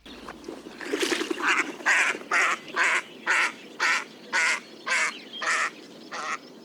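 Waterfowl calling: a regular series of about eleven harsh, honking calls, roughly two a second, starting about a second in.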